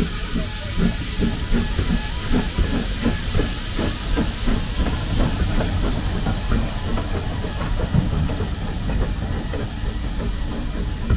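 Steam locomotive working, with a quick, even run of beats under a steady hiss of steam.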